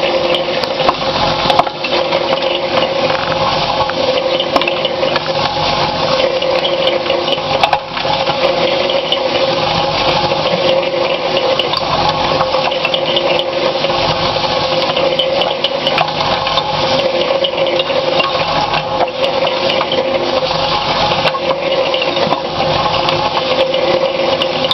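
Cement mixer running as a ball mill: its motor and gearing hum steadily while the steel balls, rods and nuts in the turning drum clatter through a wet slurry. It is grinding the incinerated chip material down to a fine powder.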